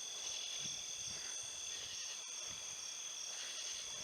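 Chorus of crickets and other insects trilling steadily at several high pitches, with one call pulsing in short notes about twice a second.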